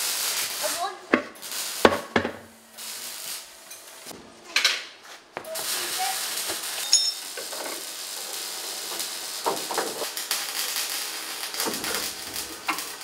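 Metal clanks and knocks from car parts and tools being handled, a few sharp strikes in the first five seconds, then a steady hiss with fine ticking from about halfway in.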